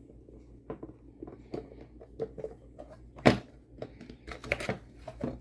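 Handling noises of a pistol magazine being taken from its box: small clicks and rustles, with one sharp click a little over three seconds in and a few more clicks near the end.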